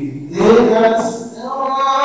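A man's voice chanting a slow melodic religious recitation with long held notes, starting abruptly and swelling about half a second in.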